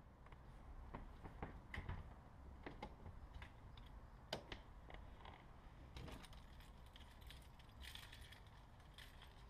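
Faint irregular clicks and small metallic rattles over a low rumble, like keys or small hardware being handled.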